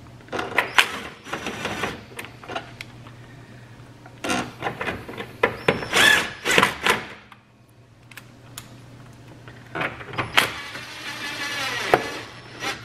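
Cordless drill/driver with a socket extension running in short bursts, driving the bolts home on a plastic engine air intake duct. There are three bursts mixed with clicks and rattles, the last, about ten seconds in, a steadier run of about two seconds.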